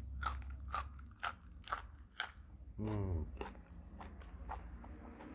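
Close-up crunching and chewing of raw long beans, about two crisp crunches a second for the first two and a half seconds. About three seconds in comes a short hum that falls in pitch, followed by softer chewing.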